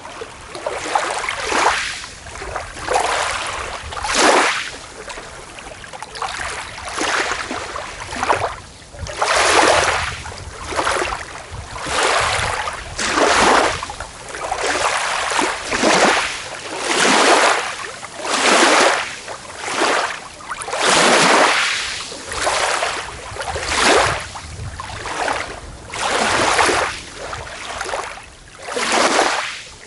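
Small waves washing onto a beach, one soft rush of surf after another, about one every second or so, each swelling and fading away.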